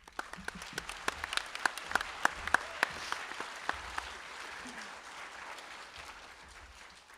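Audience applauding. It starts suddenly, with sharp individual claps standing out in the first few seconds, then gradually dies away.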